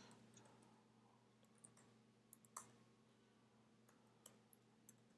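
Faint computer keyboard typing: scattered single keystroke clicks at irregular intervals, over a faint steady low hum.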